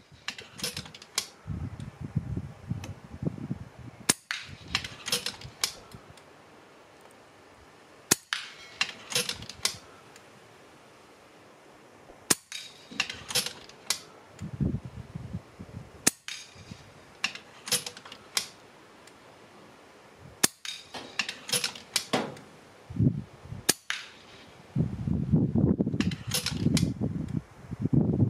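Sub-12 ft-lb air rifle firing Mako slugs at a target, a shot about every four seconds, each followed by a quick run of lighter clicks. Gusts of wind rumble on the microphone at times.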